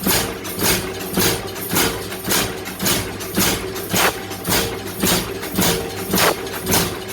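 Steady, even hammer blows on wrought iron, about two a second, each strike ringing briefly, over a steady machine hum.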